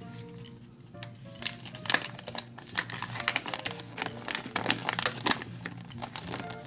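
Paper crinkling and rustling in quick, irregular crackles from about a second in, as the packaging paper and checklist are handled, over background music with a simple plinking melody.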